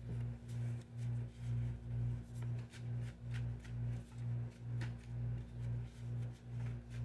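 Background music: a low droning tone that pulses about twice a second over a steady hum, with scattered light ticks of tarot cards being handled.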